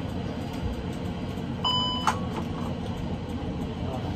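Steady hum of an Airbus A380 flight deck powered on external ground power, with a single short electronic beep a little under two seconds in and a sharp click just after it.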